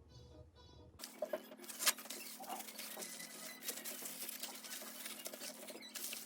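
Quick light clicks, taps and scratching over a steady low hum, starting abruptly about a second in, with one sharper tap just under two seconds in.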